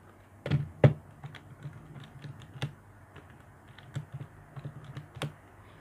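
Buttons of a Casio scientific calculator being pressed: a string of small, irregular plastic clicks. Two louder knocks about half a second in, as the calculator is put down on the paper.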